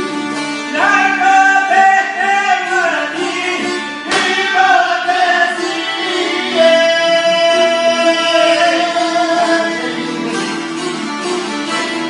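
Albanian folk song: a man sings three long, held, ornamented phrases over a steady plucked string instrument accompaniment.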